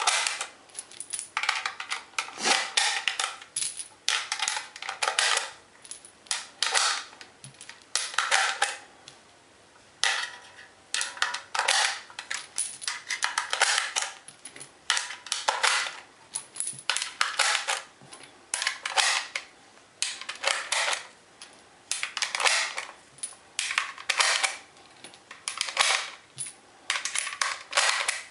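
Rifle cartridges being pushed one by one into a metal 30-round AK-47 magazine, each round giving a short burst of metallic clicking and scraping against the feed lips, about once a second.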